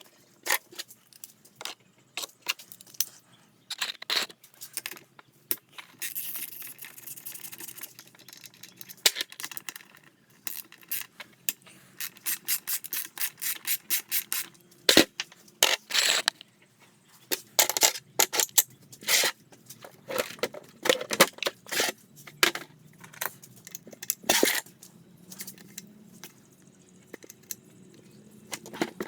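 Hand tools and small metal engine parts clinking, tapping and scraping in irregular runs of sharp clicks, with a stretch of scraping about six seconds in.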